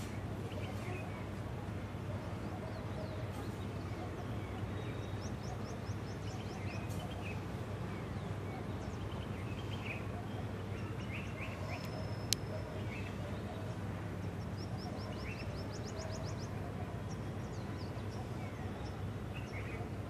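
Small birds chirping, with a few quick high trills, over a steady outdoor rush. A single sharp click comes about twelve seconds in.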